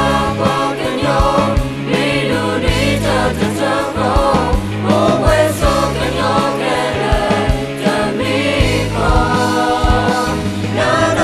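A song sung by several male and female voices together, backed by a band with electric guitar, keyboard and a steady bass line.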